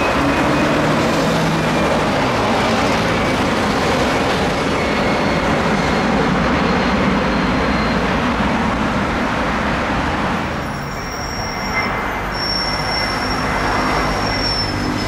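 Jet engines of an Airbus A318 climbing out after takeoff: a steady rushing noise with a faint whine that slowly falls in pitch. About ten seconds in, the sound changes to the jet engines of a climbing Airbus A319, with high steady whines over the rush.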